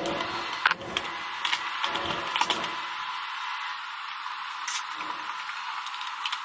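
Irregular clicks and knocks of hand tools and motorcycle parts over a steady hiss, with heavier knocks in the first three seconds and only light clicks after.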